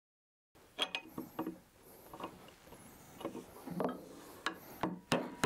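Scattered small metal clicks and light knocks of hand tools: a peg spanner being worked into the pin holes of an Autoprop H6 propeller's blade cap and tools picked up from a wooden bench. The sound starts about half a second in, after a stretch of silence.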